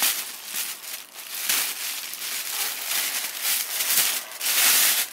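Thin plastic carrier bag crinkling and rustling as hands pick at and untie its knotted handles and pull it open. The rustle comes in uneven spurts and is loudest near the end.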